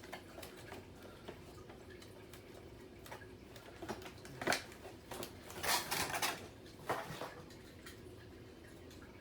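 Small plastic toy pieces from an airport playset being handled and set down: scattered light clicks and taps, with a louder stretch of handling noise between about four and seven seconds in.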